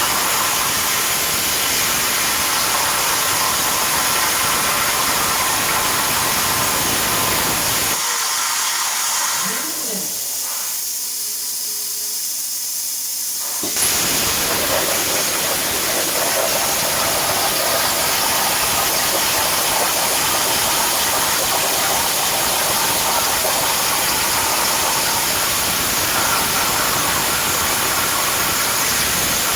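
CNC plasma torch cutting 10 mm steel plate: a steady, harsh hiss. About eight seconds in, the hiss drops away for about six seconds, leaving only a thin high hiss, which fits the arc being off between cuts. It then starts again abruptly, fitting the arc re-striking for the next cut.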